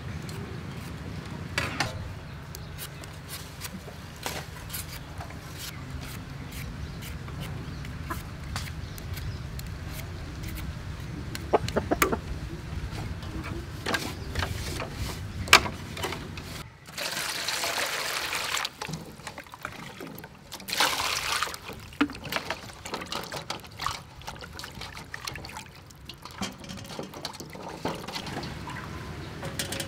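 Scraping strokes of a hand peeler on young green mangoes, heard as scattered sharp clicks. About halfway through come two spells of water splashing, and near the end hands rub peeled mangoes in an aluminium bowl of water. Chickens cluck in the background.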